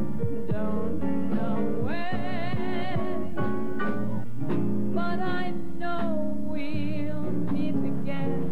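Music: a woman singing a slow song with strong vibrato over steady instrumental backing.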